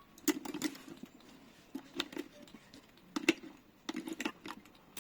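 AA batteries being pressed into a smart lock's plastic battery holder: several separate sharp clicks and knocks at irregular intervals.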